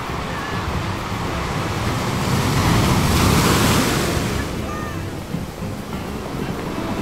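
Ocean surf breaking on the beach: a wave swells to its loudest about three to four seconds in and then washes away. Wind rumbles on the microphone throughout.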